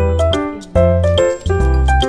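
Background music: a melody over a repeating bass line, with a steady beat.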